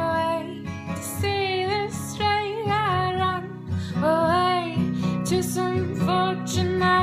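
A woman singing over a strummed acoustic guitar, her voice gliding between sustained notes.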